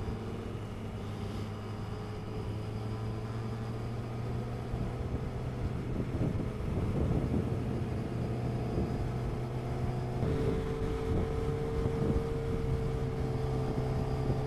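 Sportbike engine running steadily at highway cruising speed, heard from the rider's seat. The engine note holds steady and grows slightly louder, with a higher steady tone coming in about ten seconds in.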